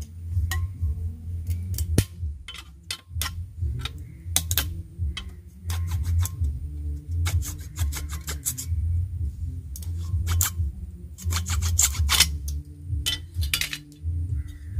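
A knife prying and pulling at the plastic pourer nozzle on a glass liquor bottle's neck: irregular sharp clicks and knocks of blade, plastic and glass, some in quick clusters, over a steady low hum.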